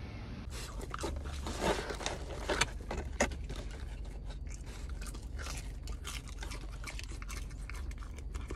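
Dachshund chewing and crunching a chicken nugget, a run of quick crunches and clicks starting about half a second in, loudest in the first few seconds.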